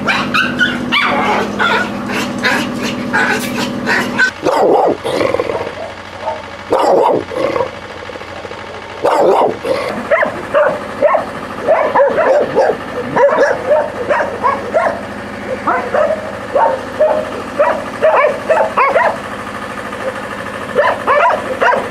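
Several kennelled dogs barking repeatedly. In the first few seconds there is high-pitched yapping over a steady low hum, then deeper, louder barks come in quick clusters.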